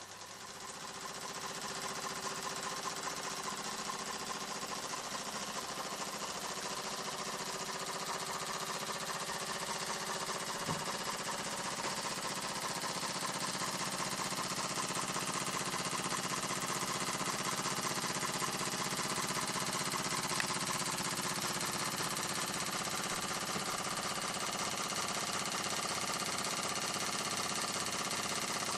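Restored 1929 Meccano toy steam engine running under steam, a rapid, steady mechanical clatter and chuff. It grows louder over the first couple of seconds.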